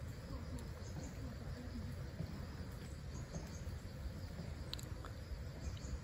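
Faint insect chirring over a steady low outdoor rumble.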